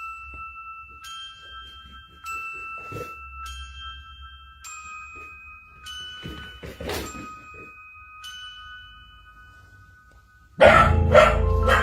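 A slow, bell-like melody, one ringing note about every second, with a dog making a few short barks about three seconds in and again around six to seven seconds in. Near the end, much louder music with struck, chiming notes starts abruptly.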